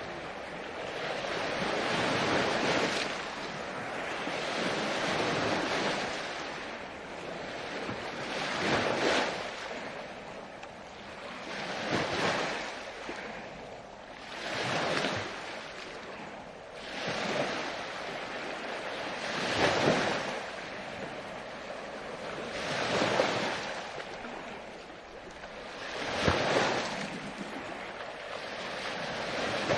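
Ocean waves breaking and washing up on the shore, a wave surging in about every three seconds, each rising to a peak of surf noise and fading away.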